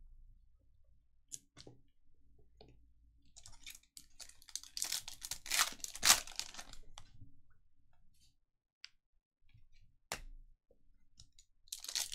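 Foil wrapper of a trading-card pack crinkling and tearing as it is pulled open by hand, loudest around the middle, with a few light clicks before it and another burst of crinkling near the end.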